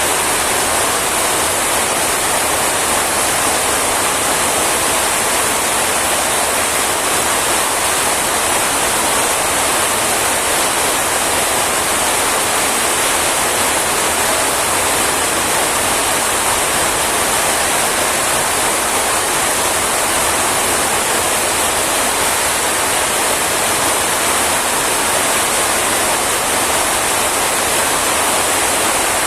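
Rain falling steadily: an even hiss that does not change.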